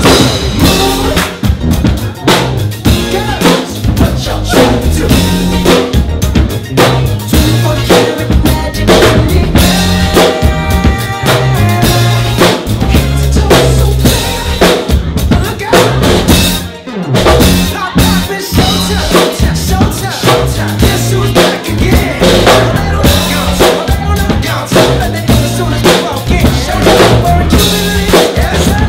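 Loud dance music with a live drum kit, kick and snare driving a steady beat, over a stepping bass line. The music dips briefly a little past halfway.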